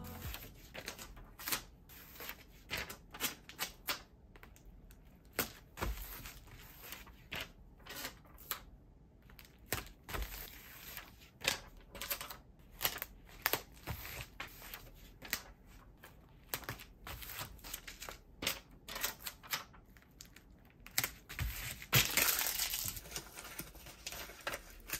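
Hand-packing sounds from silver foil bubble mailers, paper and labels: irregular light taps and clicks as items are set down and handled, with soft crinkling between them and a longer, louder rustle near the end.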